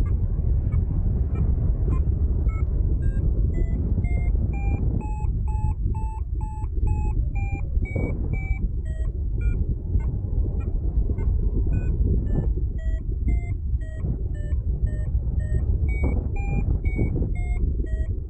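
Paragliding variometer beeping in short tones a few times a second, the pitch stepping up and down: the climb tone that signals rising in thermal lift. Loud wind rushes over the microphone underneath.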